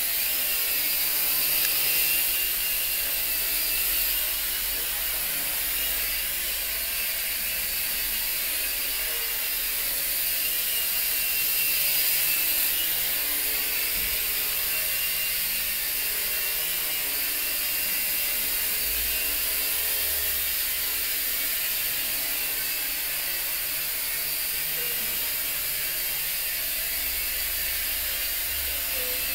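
J Perkins Twister quadcopter's small electric motors and propellers buzzing steadily as it hovers and flies about, with a high whine that wavers slightly in pitch as the throttle changes.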